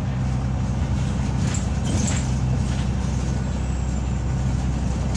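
Wright Gemini 2 double-decker bus on a VDL DB300 chassis, its diesel engine droning steadily as it drives along, heard from inside the passenger saloon. There are a few light rattles about two seconds in.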